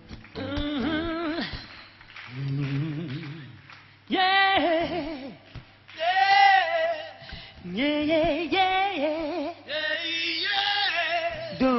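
Voices singing largely unaccompanied in about six short held phrases with vibrato, separated by brief pauses, over a steady low hum.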